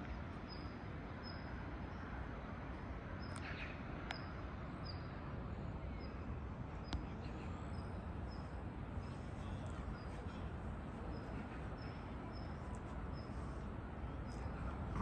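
Outdoor evening ambience: a steady low hum of distant city traffic, with a faint high chirp repeating about every two-thirds of a second and a few short bird chirps.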